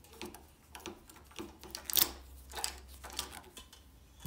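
Metal handlebar lever and its cable on an old Riga 12 moped being squeezed and worked by hand, giving a string of irregular clicks and rattles, the loudest about two seconds in.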